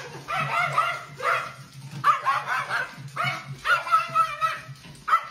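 A dog giving a run of high-pitched whines and yips, about six short cries that bend in pitch.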